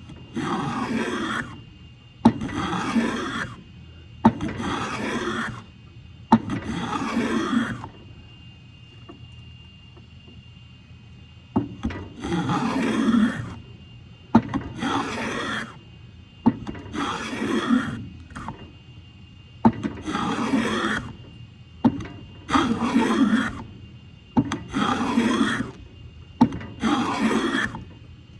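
Hand plane shaving a board, stroke after stroke: about a dozen long rasping passes, roughly one every two seconds, with a pause of a few seconds partway through.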